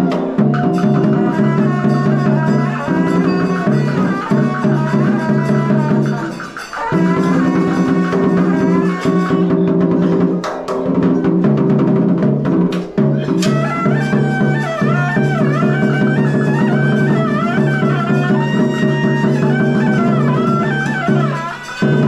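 Cao Đài ritual ensemble music: sustained bowed-string and wind tones over drum strokes, with a few brief pauses. A sliding, ornamented melody line comes to the fore about halfway through.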